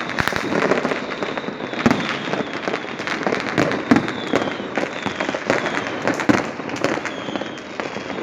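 A dense, continuous barrage of fireworks and firecrackers going off across a city: constant crackling pops with louder single bangs every couple of seconds, and faint high falling whistles from whistling rockets here and there.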